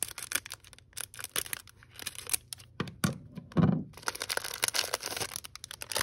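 Clear plastic wrapper of a baseball-card rack pack crinkling and tearing as a cell is snipped open with scissors and the cards are pulled out, with rapid crackles throughout and a dull thump about three and a half seconds in.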